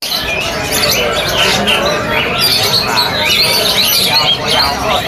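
Many caged songbirds chirping and calling at once, a dense overlapping chorus of quick high chirps and squawks, over a murmur of people in the background.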